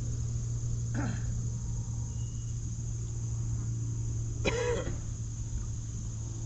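Outdoor ambience of a steady low hum with insects droning high, broken by two short voice-like calls, a faint one about a second in and a louder one about four and a half seconds in.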